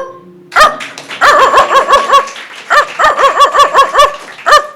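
A person imitating a small dog with the voice: short, high yapping barks in quick runs of several a second, with brief pauses between the runs.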